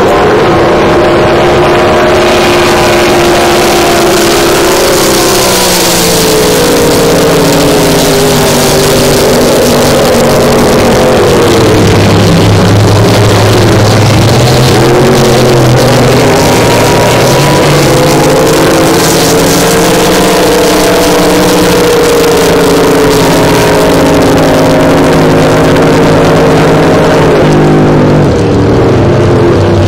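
Engines of several racing powerboats running flat out as the boats pass, loud and steady, their pitch dipping and rising as they go by.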